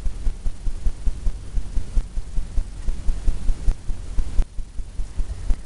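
Low, uneven throbbing rumble in the background, with no distinct event above it.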